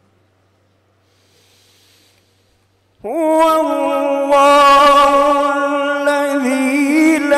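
Near silence for about three seconds, then a man's voice enters with a short upward glide into a long held note of melodic Quran recitation (tilawat), amplified through a microphone.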